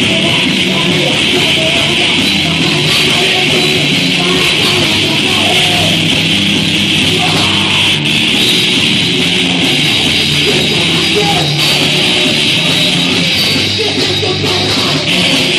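Loud heavy rock music with electric guitar, playing without a break.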